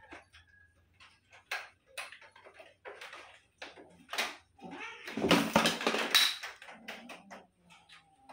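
Bengal cats play-fighting on a tile floor: scattered scuffs and claw clicks, then a loud cat cry lasting about a second and a half, starting about five seconds in, with a shorter, fainter cry after it.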